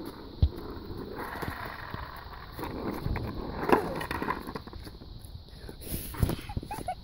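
Skateboard wheels rolling over rough wet asphalt, with a sharp knock just after the start, the loudest knock about midway as the board kicks out from under the rider, and another near the end as the board tips over and hits the pavement.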